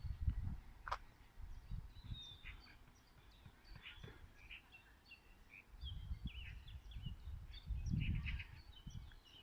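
Small birds chirping and twittering in short calls throughout, over intermittent low rumbling noise that swells near the start and again from about six seconds in, with a single sharp click about a second in.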